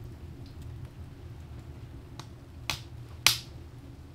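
Wood fire crackling in a woodstove firebox: a few sharp pops, the loudest about three seconds in, over a steady low rumble.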